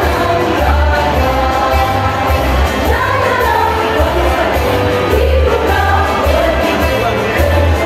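Women's choir singing a song together, over a loud accompaniment with a deep, moving bass.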